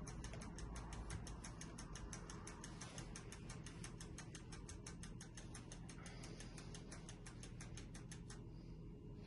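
Mechanical wind-up timer on a stainless-steel stick-waffle maker ticking fast and evenly, about seven ticks a second, over a low steady hum; the ticking stops about eight seconds in.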